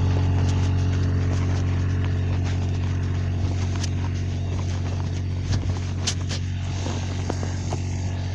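Ride-on mower engine running at a steady speed with a deep, even hum. A few clicks and knocks come in the second half as the operator steps off the machine.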